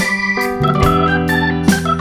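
Background music: sustained organ-like keyboard chords over a steady beat.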